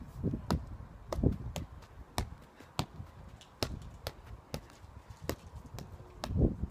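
A football being kicked up repeatedly with the feet, a short knock at each touch, roughly two a second and unevenly spaced, with a few heavier low thumps among them.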